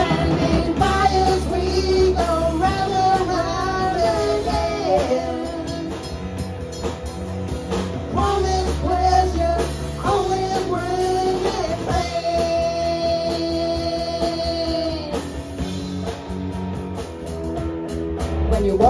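Live rock band playing: electric guitars, bass guitar and drum kit, with a wavering lead melody over the top and one long held note partway through.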